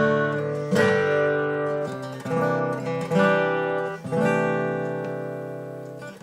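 Epiphone FT-130 acoustic guitar, on old strings, being strummed. About five chords are struck, each left to ring and fade, and the last rings out for about two seconds.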